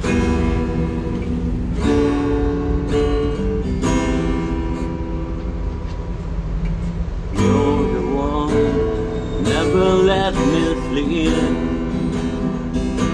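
Acoustic guitar strummed in slow chords as a song's intro. About halfway through, a wordless hummed melody joins in over the guitar.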